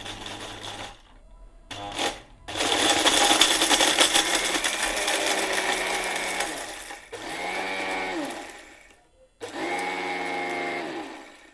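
Orpat 1200-watt mixer grinder crushing a whole brick to powder in its small stainless-steel jar. A couple of short pulses, then about four seconds of loud grinding, then two shorter runs in which the motor's whine is heard, falling in pitch each time it winds down.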